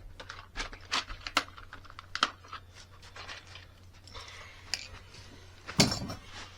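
Scattered light clicks and taps of hand tools and small parts being handled during hand work, with a louder knock near the end, over a steady low hum.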